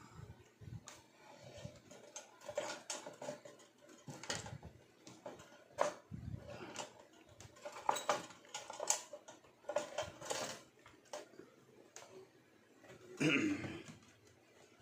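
Toaster's sheet-metal body and plastic end housing being handled and fitted back together: irregular clicks, knocks and scrapes, with a louder knock and scrape about thirteen seconds in.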